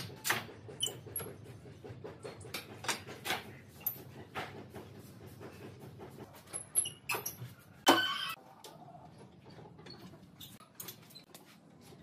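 Pipe clamps being handled and adjusted on steel pipes against a wooden frame: a run of irregular clicks, knocks and short squeaks, with one louder metallic clank that rings briefly about eight seconds in.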